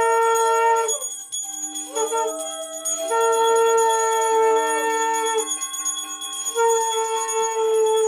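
A conch shell (shankha) blown in long held notes, several in a row with short breaks between, the pitch bending at the start and end of each blast, over a small hand bell ringing without pause.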